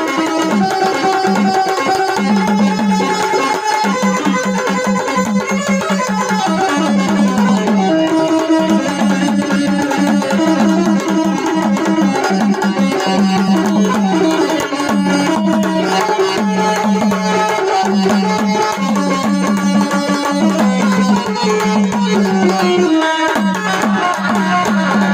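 Live band music: a tabla playing a steady rhythm under a continuous instrumental melody.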